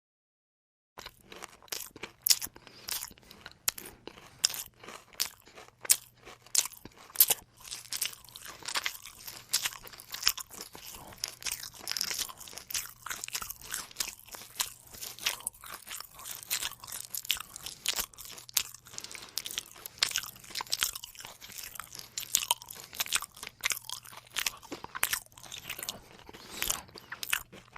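Close-up chewing of crunchy food, a dense, irregular run of crunches. It starts about a second in, after a brief silence.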